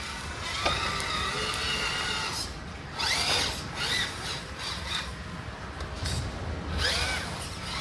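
Micro RC crawler's small electric motor and gearing whining. The pitch rises sharply with each throttle push, about three, four and seven seconds in, between steadier stretches of whine.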